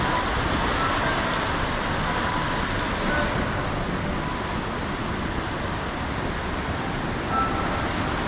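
Steady rush of a fast, turbulent river, an even noise of flowing water.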